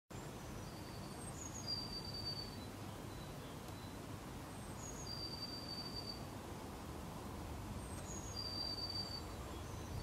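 A small songbird singing the same short, high phrase three times, a few seconds apart: a couple of quick falling notes, then one long steady whistle. Under it runs a low, steady outdoor rumble.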